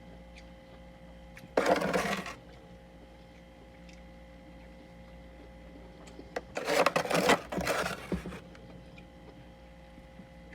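Freezer frost from a humidifier-chilled freezer crunched and scraped in three short noisy bursts: one about a second and a half in, then two close together past the middle.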